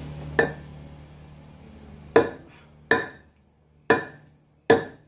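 A block of wood used as a mallet knocks five times on a cast-iron cylinder head clamped in a lathe, the first blow lighter, each with a short ringing tail, tapping the head over so it sits true for facing.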